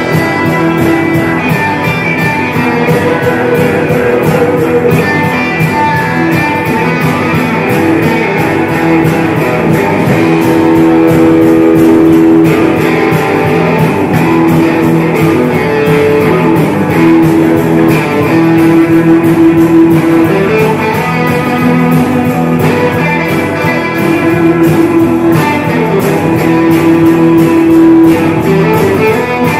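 Band playing rock music live, electric guitar to the fore over a steady, even drum beat, with held melody notes.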